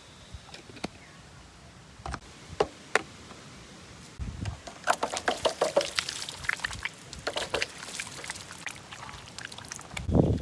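Water being poured and splashing, starting about four seconds in after a few separate knocks, with a louder burst near the end.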